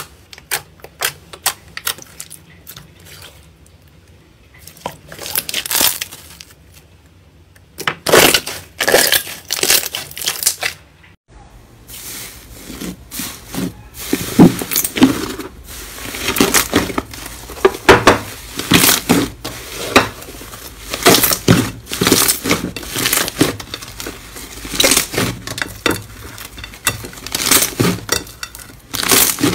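Hands pressing and squishing slime, giving irregular sharp clicking pops. After a brief break about eleven seconds in, denser crackling pops follow as a soft, air-filled slime is pressed down.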